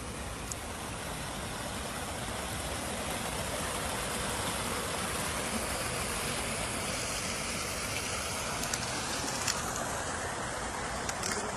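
Untreated wastewater rushing steadily out of an outfall pipe into a river, with a few faint ticks in the second half.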